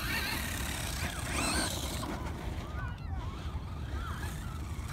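Electric motor of a brushless radio-controlled Traxxas Slash 2WD truck whining in short rising and falling bursts as the throttle is worked, over a steady rushing noise and low rumble.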